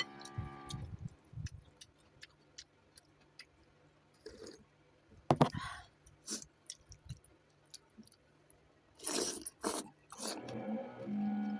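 Close-miked eating of noodles: chewing and mouth noises with scattered sharp clicks. There is a loud burst about five seconds in and two longer noisy bursts a little after nine seconds.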